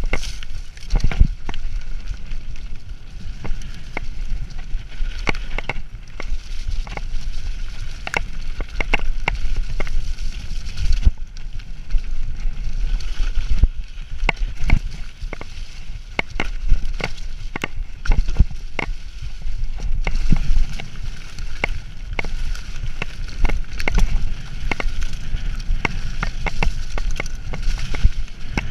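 Mountain bike ridden fast along a muddy woodland trail: steady wind buffeting on the microphone, with frequent irregular clicks and knocks as the bike rattles over bumps and roots.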